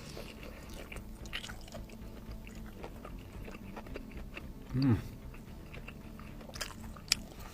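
Close-miked eating: chewing and biting with small wet clicks and crisp snaps. About five seconds in, a brief low hum falling in pitch from the eater is the loudest sound.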